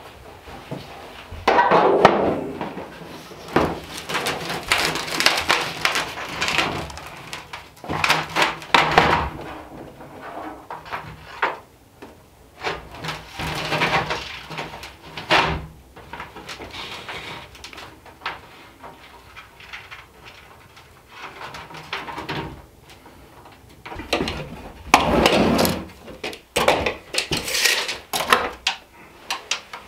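A thin sheet of 20 oz copper being handled and rolled up on a wooden floor: the metal flexes and rattles in repeated bursts of a second or two, with knocks and clicks in between.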